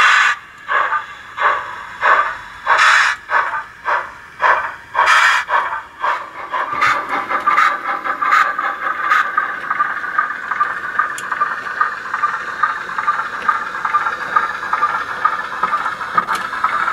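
Recorded steam-engine sound from the DCC sound decoder in a Hornby OO-gauge Peckett W4 0-4-0ST model locomotive as it runs. Separate exhaust chuffs come gradually faster over the first six seconds, then merge into a quicker, softer beat over a steady hiss.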